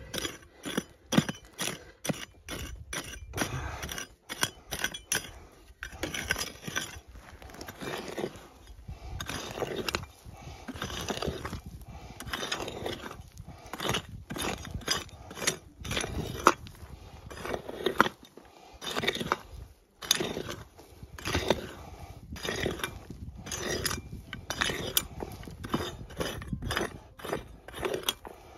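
Repeated, irregular pick strikes and scraping in stony ground, digging a deep hole down to a gold detector target that still gives a signal.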